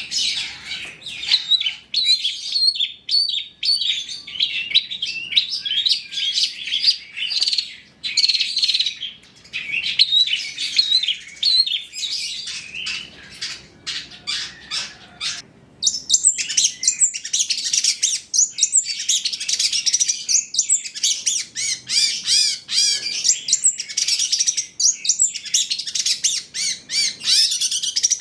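Long-tailed shrike (cendet) singing a rapid, continuous run of high chirps and trills. It breaks off briefly about halfway through, then carries on denser.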